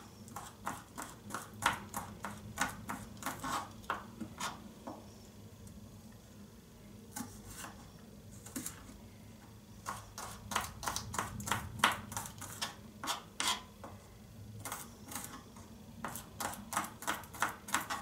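Kitchen knife chopping on a cutting board: quick knocks, about three or four a second, with a lull of a few seconds in the middle before the chopping picks up again.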